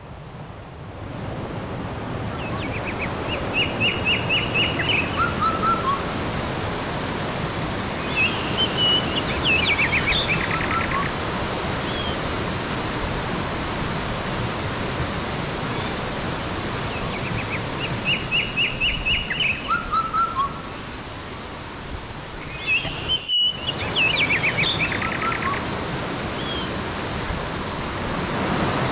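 Stream water rushing over rocks in a steady hiss, with songbirds chirping and trilling over it in short bursts. The same run of bird calls comes round twice, about fifteen seconds apart, and the sound breaks off for an instant about two-thirds through.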